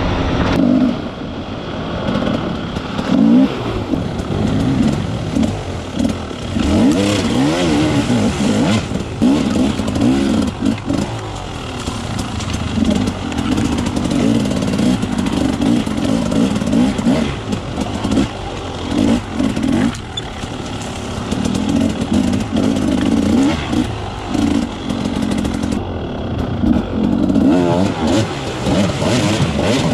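Off-road dirt bike engine, heard from the bike itself, revving up and dropping back again and again as it is ridden along a rough trail.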